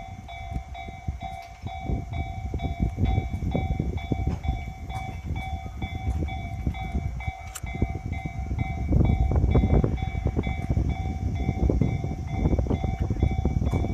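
Japanese level crossing warning bell ringing in a steady repeating electronic ding while an electric commuter train passes, its wheels rumbling and clattering over the rail joints, loudest about two-thirds of the way through.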